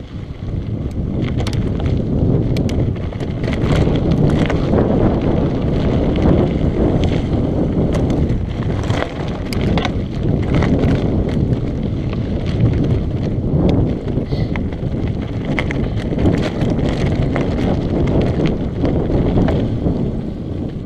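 Mountain bike descending rocky singletrack: wind buffets the action-camera microphone in a steady low rumble, and tyres roll over loose gravel and stones with frequent short rattles and knocks from the bike.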